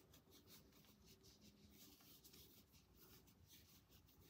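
Very faint scratching and rustling of cotton yarn being drawn through stitches by a crochet hook as double crochet stitches are worked.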